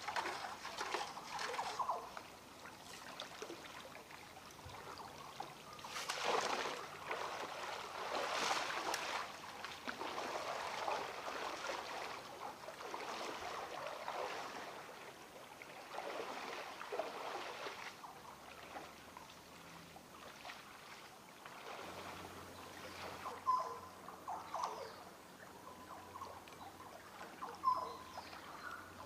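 Shallow water sloshing and trickling in uneven swells every second or two, with a few faint short chirps near the end.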